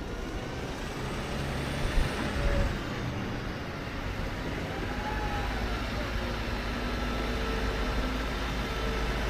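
Heavy farm machinery running steadily, a deep engine rumble with a low hum, with a short knock about two seconds in.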